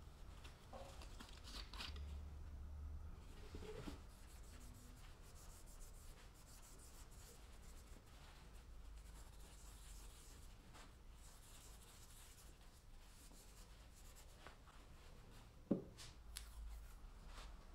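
Faint handling of a small sealed ball bearing on a wooden table: soft rubbing as it is wiped with a cloth, a few light clicks, and one sharper knock about two seconds before the end.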